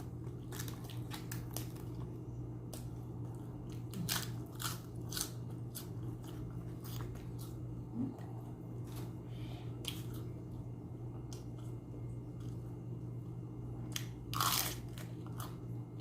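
Close-up chewing and crunching of a bite of chicken shawarma, with scattered short wet clicks and smacks and one louder crunch near the end, over a steady low hum.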